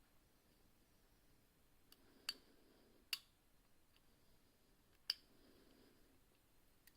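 Sharp small metallic clicks of homemade picks working the levers inside a Walsall 2000 five-lever padlock, three distinct clicks about two, three and five seconds in, with a couple of fainter ticks, over near silence.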